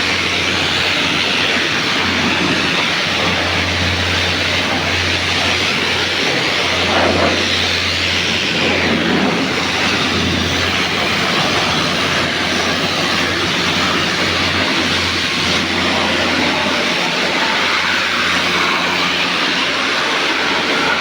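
An electric machine running steadily with a loud, even hiss over a low mains hum.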